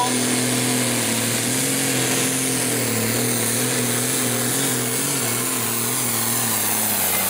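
John Deere 4010 hot farm pulling tractor's engine running flat out under load as it drags the weight sled. The pitch wavers slightly, then sags about six and a half seconds in.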